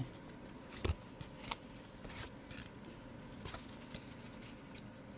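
Baseball cards being handled and sorted into piles: faint light slaps and rustles of card stock, with a soft thump about a second in.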